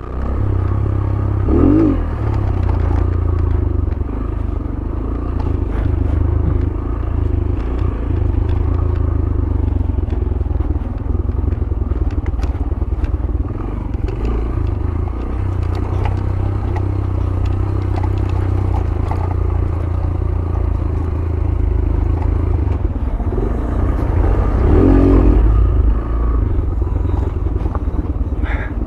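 Yamaha YBR 125G's single-cylinder four-stroke engine running steadily at low revs as the motorcycle rides down a rough dirt track, with clattering and scraping from the bike jolting over the rough ground.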